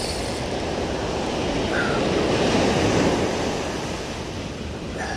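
Sea surf breaking on the shore. The rush of the waves swells to its loudest about two to three seconds in and then eases off.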